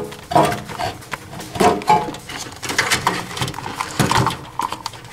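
Irregular knocks, scrapes and rustles of a 12 V Peg-Perego ride-on-toy battery being pushed by hand down into a battery compartment among its wires.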